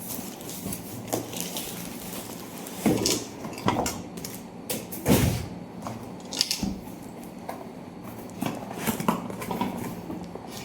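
A non-stick frying pan set being unpacked and handled: scattered light knocks and clatter of the pan and its parts, with rustling of the packaging.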